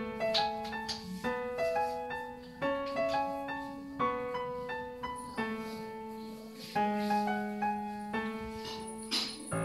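Background piano music: a gentle melody of single notes over sustained lower chords.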